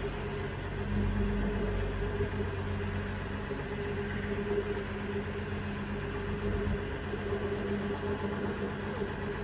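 Tour boat's engine running steadily, heard from on board: a low drone with a constant hum.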